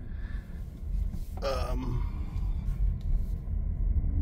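Low, steady rumble of a car's cabin and road noise as it drives slowly. About a second and a half in comes one short sigh, falling in pitch.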